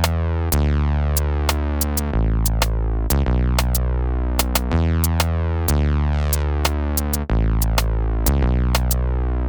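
Electronic music: sustained synthesizer bass notes that change pitch every second or so, with light drum-machine clicks over them.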